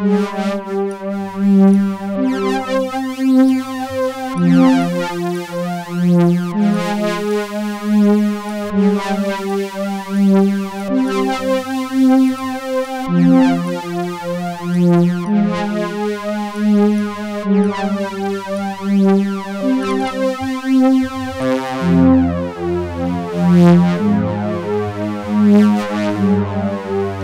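Native Instruments FM8 software synthesizer playing a sustained pad of overlapping chords that change about every two seconds. Its upper tones waver in an unstable vibrato driven by the patch's pitch envelope, giving a beautiful, unstable, very rich sound. A deeper bass part joins about two-thirds of the way through.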